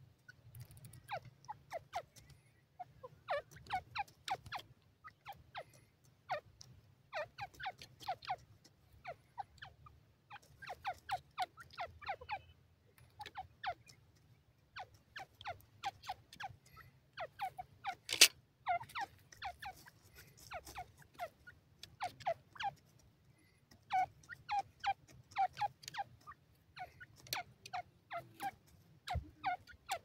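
Grey francolin calling: short runs of quick, sharp notes, with a new run every second or two. One louder sharp click comes partway through.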